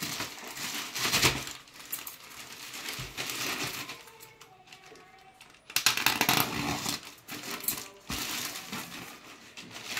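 Plastic courier mailer bag crinkling and rustling in bursts as it is pulled and torn open by hand. It is loudest about a second in and again around six seconds, with a quieter stretch in between.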